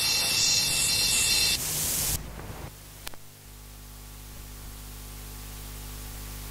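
Tape hiss from a SABA cassette deck playing the blank stretch of an old cassette after the song has ended. The hiss drops about two seconds in, a single click comes about a second later, and then a quieter, steady hiss with a low hum carries on.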